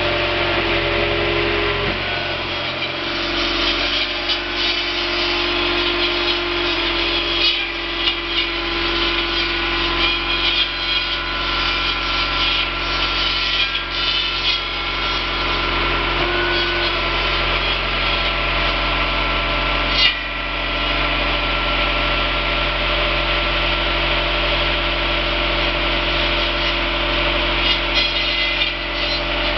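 Tractor engine and hydraulic drive running steadily while the twin circular saw blades of a reach-arm hedge cutter cut into a conifer hedge, with irregular crackling and snapping as branches are cut through. There is one sharp crack about twenty seconds in.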